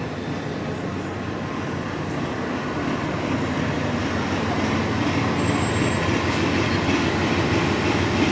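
Large vehicle's engine running with a low hum and a broad rush, growing slowly louder as it draws nearer: a transit bus pulling up to the stop.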